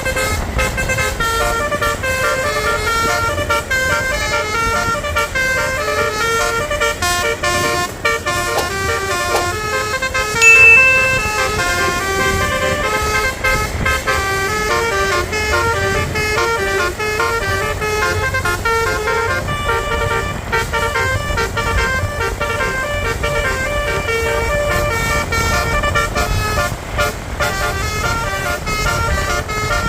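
Bus telolet horn of the Basuri multi-trumpet type playing a long run of quickly changing notes, with a low engine and traffic rumble beneath. One short, much louder shrill note sounds about ten seconds in.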